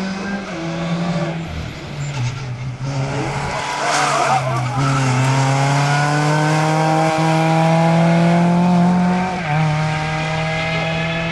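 Ford Fiesta ST rally car's four-cylinder engine at high revs, accelerating hard through the gears. Its pitch rises steadily for several seconds before dropping at a gear change near the end. A short rush of noise comes about four seconds in.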